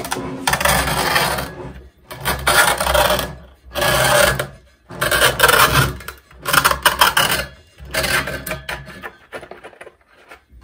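Knife scraping and cutting at an old loudspeaker being taken apart: a run of rasping strokes, each about a second long with short pauses between them, growing fainter near the end.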